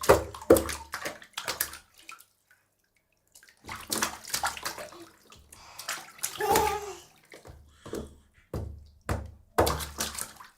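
A baby splashing bath water in a tub: a quick run of sharp splashes, a pause of over a second, then more irregular sloshing and splashing, with another quick run of splashes near the end.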